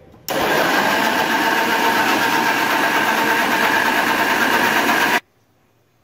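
Electric kitchen blender running for about five seconds, blending chopped beetroot with water into juice; it starts and stops abruptly.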